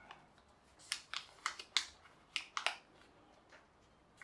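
A sheet of paper being folded and creased by hand: a run of about seven short, crisp crackles between about one and three seconds in.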